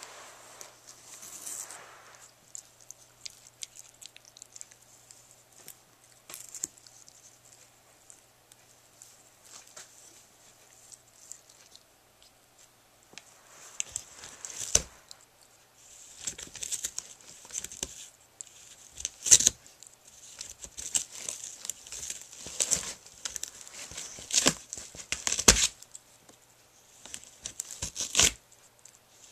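A puppy tearing and chewing cardboard and paper with her teeth. There are scattered crackles at first, then from about halfway on, frequent short bursts of ripping and crinkling.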